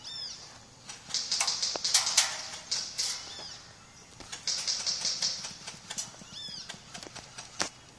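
Rustling and crunching of someone moving through dry brush or leaves in two spells, with scattered sharp clicks and one louder crack near the end. A few short bird chirps.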